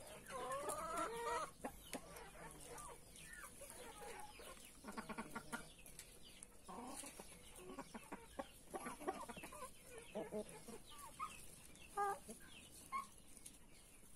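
Brahma chickens clucking while feeding: a loose stream of short clucks mixed with a few longer, drawn-out calls from several birds.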